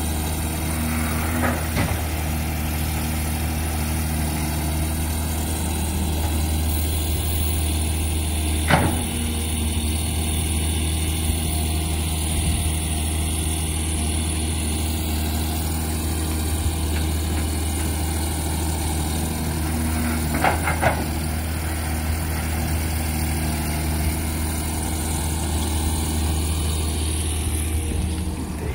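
Caterpillar hydraulic excavator's diesel engine running steadily at close range, with a strong low hum. A few sharp knocks cut through it: one near the start, one about nine seconds in, and a quick pair around twenty seconds in.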